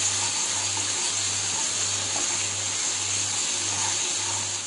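Onion, capsicum and tomato masala sizzling in a non-stick kadai as a spatula stirs it, frying the just-added chilli powder.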